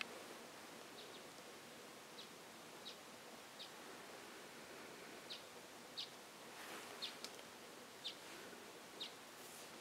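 Faint, short, high chirps from a small bird, about one a second, over a quiet forest background, with a soft rustle about two-thirds of the way through.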